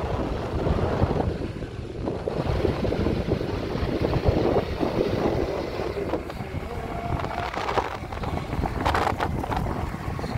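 Wind buffeting the microphone: a steady, gusting rumble with no words, and a few light knocks about nine seconds in.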